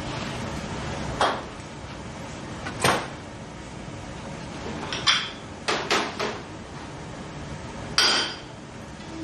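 Dishes being set down on a stainless-steel counter: saucers and small flan cups knock and clink against the metal. There are seven or so separate knocks, a second or two apart.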